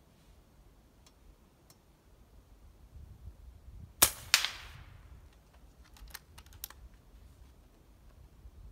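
A shot from an FX Wildcat .30 PCP air rifle, followed about a third of a second later by the pellet striking a steel target, which rings briefly. A few light clicks follow a couple of seconds later.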